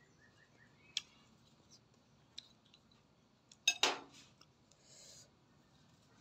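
Quiet table sounds of fruit being peeled and eaten by hand: a few light clicks, then a louder brief clatter of tableware a little past halfway, as a small knife or fruit touches the plate.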